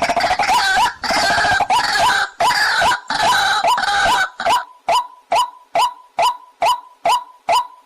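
Waterhen calls. For the first four and a half seconds or so, rough overlapping calls run together, then they settle into a regular series of short single notes, about two and a half a second.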